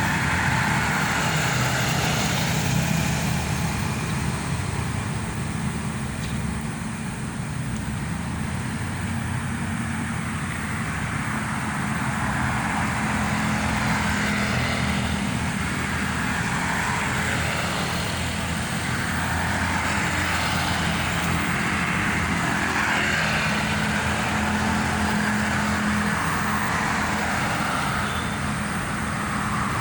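Steady road-traffic noise: a continuous low engine hum with the hiss of passing vehicles swelling and fading every few seconds.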